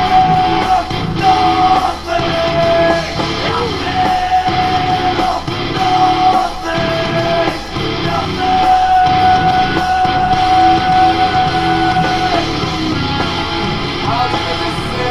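Rock music with a singing voice, the sung notes held for a second or so at a time over guitars and drums.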